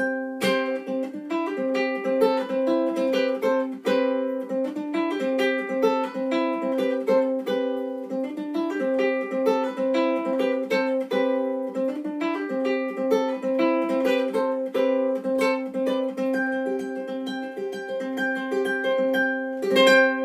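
Godin MultiUke Koa tenor ukulele played through a Boss AD-2 acoustic preamp pedal into a Cornell valve acoustic amplifier, picking a quick melody over repeated ringing notes. A louder strum comes near the end, and its notes ring on.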